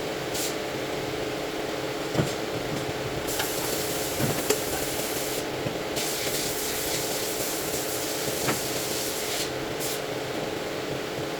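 A steady machine hum with two spells of hissing, each a few seconds long, and a few light knocks.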